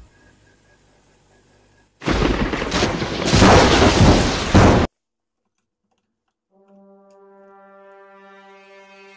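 MIG welding arc crackling loudly for about three seconds as the steel bolt is welded, then cutting off suddenly. After a short silence, a held horn-like note of background music comes in near the end.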